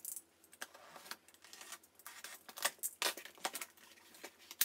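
Cardboard shipping box being opened by hand: packing tape slit and peeled and the cardboard flaps pulled back, a string of irregular sharp crackles and scrapes.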